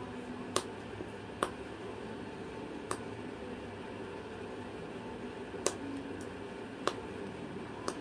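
Cockatoo chewing a chew-toy block held in its foot, its beak cracking it in six sharp, irregularly spaced clicks. A steady low hum runs underneath.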